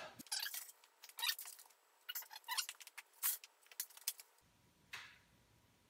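A string of light metallic clicks and clanks as a man climbs an aluminium stepladder, with one more knock about five seconds in.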